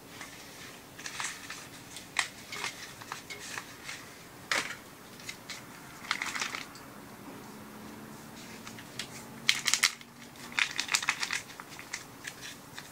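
Plastic soup-base packet crinkling and rustling in the hands in irregular bursts, with a few sharp clicks in between.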